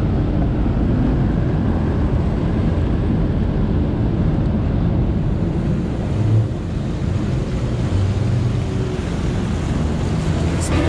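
Jet ski engine running underway, heard from aboard, with water rushing and wind buffeting the microphone in a steady dense rumble.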